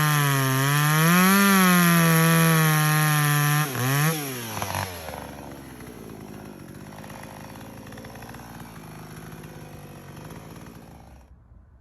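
Two-stroke chainsaw running at high revs, its pitch rising and falling every second or so. The engine dips and shuts off about five seconds in, leaving a faint noise. The owner finds the saw still running restricted.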